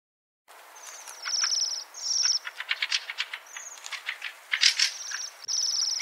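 Fieldfare song: a chattering, clattering run of squeaky notes and harsh, rapid buzzy phrases, starting about half a second in over a steady hiss.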